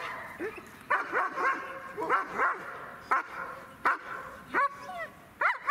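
A dog barking over and over, roughly one or two sharp barks a second with short gaps between.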